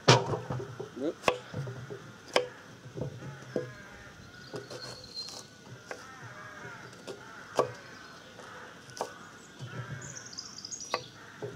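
Kitchen knife chopping an onion on a wooden butcher-block table: sharp, separate knocks of the blade hitting the board, irregular and roughly one every second or two, the loudest at the very start.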